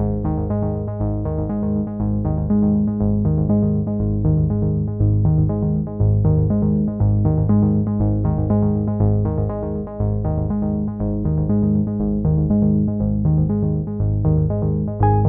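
Background synthesizer music with a steady, evenly repeating pattern of notes.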